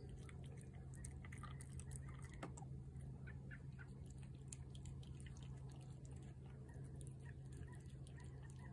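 Cat eating wet food off a plate: faint, scattered chewing clicks.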